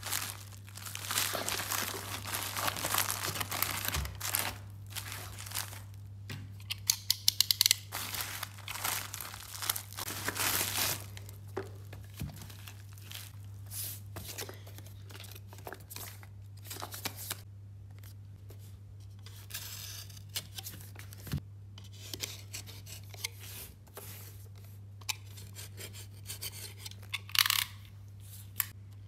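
A plastic mail bag being torn open and crinkled for the first ten seconds or so, with a quick run of sharp clicks about seven seconds in. Then scattered scrapes, taps and rustles as a cardboard watch box is handled, over a steady low hum.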